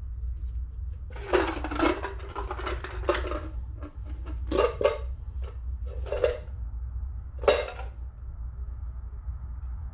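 Metal hand tools and parts clattering and clinking: a couple of seconds of rummaging clatter about a second in, then three short separate clinks, over a steady low hum.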